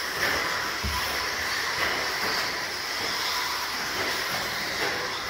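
Several RC stadium trucks racing on an indoor track, heard as a steady mix of motor whine and tyre noise, with a short low thump about a second in.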